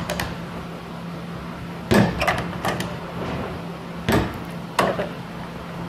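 Lid and bent metal lock of a plastic clinical waste bin clunking as the lid is dropped and worked against the lock, which does not catch because it is bent. A cluster of knocks about two seconds in, then a loud knock about four seconds in and a lighter one soon after.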